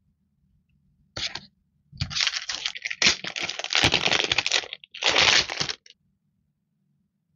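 Sticker sheets being handled and flipped over, crinkling in three bursts: a short one about a second in, a long one from about two seconds to nearly five, and a shorter one just after five seconds.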